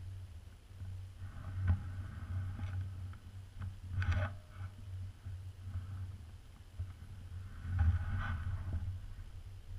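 Someone walking through dry fallen leaves, with crunching and rustling in irregular bursts (loudest about 4 s in and around 8 s) over a steady low rumble of wind and handling on the microphone.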